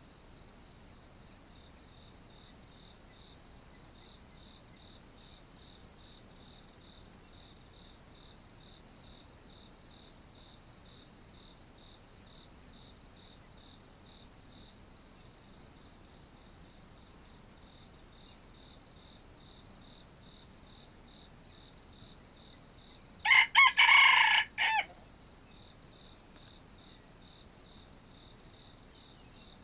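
Red junglefowl rooster crowing once, a short crow of under two seconds in a few linked notes, about three-quarters of the way through. Under it, a faint steady insect trill pulsing about twice a second.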